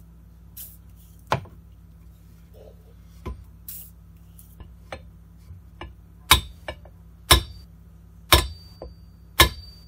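Claw hammer tapping a steel pin out of a centrifugal casting machine's shaft, four sharp metal-on-metal taps about a second apart in the second half, the later ones with a short metallic ring. Earlier, a few light clicks of handling the parts.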